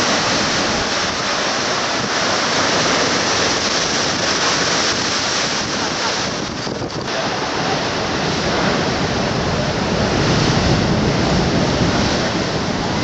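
Rough sea: heavy waves breaking against the shore in a continuous wash of surf, swelling louder about ten seconds in.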